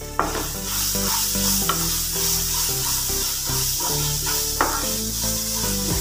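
Grated Indian gooseberry (amla) sizzling in hot sesame oil in a non-stick pan, stirred with a wooden spatula, with a few light knocks of the spatula against the pan. The sizzle jumps up a moment in.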